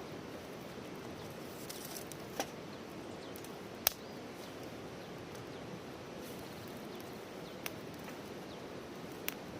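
Wood campfire burning with a steady low hiss, the firewood giving a few sharp crackling pops, the loudest about four seconds in.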